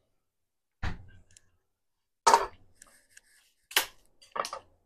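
Kitchen items such as utensils and dishes being handled and set down on hard counters: four separate sharp clatters, spaced unevenly, the last two close together.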